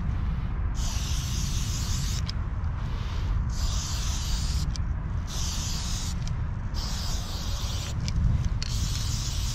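Aerosol spray-paint can sprayed in a string of bursts about a second long each, with short breaks between, over a steady low rumble.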